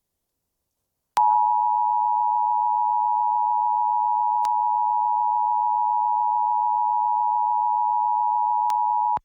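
Emergency Alert System attention signal: a steady two-tone alert of 853 and 960 Hz. It starts about a second in, holds for about eight seconds, then cuts off suddenly. It heralds a relayed Winter Storm Warning message.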